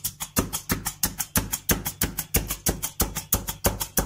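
Hand-held needle meat tenderizer plunged again and again through pork neck steak onto a plastic cutting board, a rapid, even clacking of about four strokes a second, its blades piercing holes in the meat.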